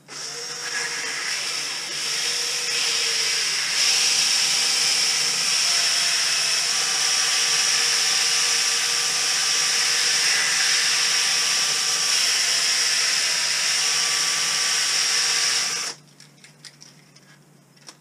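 Cordless drill running steadily to spin a rusty drive shaft while sandpaper is held against it to clean off the rust. It grows louder about four seconds in and stops abruptly near the end, leaving a few faint clicks.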